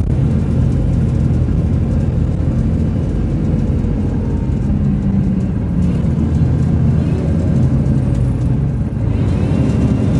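Steady low rumble of engine and tyre noise heard from inside a moving road vehicle.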